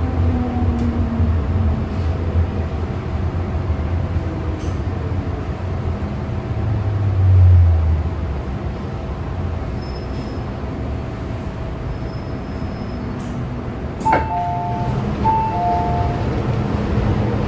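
MTR M-train electric multiple unit heard from inside the car by the doors. It slows to a stop at the platform, with a falling motor whine at the start and a low swell of running noise about half way. About fourteen seconds in there is a sharp click, then a two-note chime sounds twice as the doors open.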